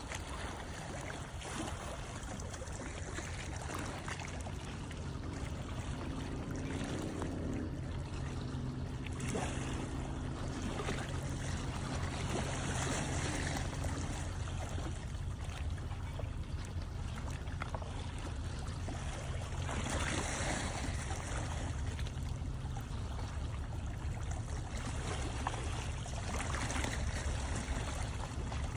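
Harbour water lapping and washing against the shore, swelling louder every several seconds, over a steady low drone of a boat engine out on the water.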